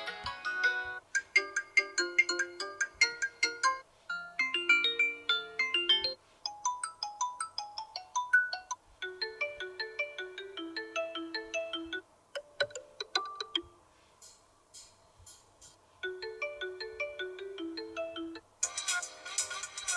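Stock ringtones of a Xiaomi Redmi Note 8 2021 smartphone played one after another. Each is a short melody of quick separate notes, and a new tone starts every two to three seconds. One tone in the middle is a fainter, high tapping pattern.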